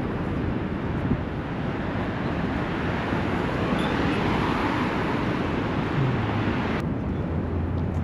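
City street traffic noise: a car passes, swelling and fading about halfway through, over steady road rumble. The brighter hiss cuts off abruptly near the end.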